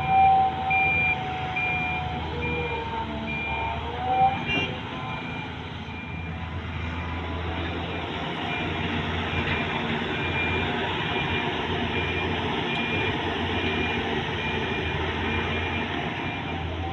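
Heavy diesel machinery running steadily under a reversing alarm beeping evenly, a little over once a second. In the first few seconds a couple of short gliding tones rise and fall over the engine.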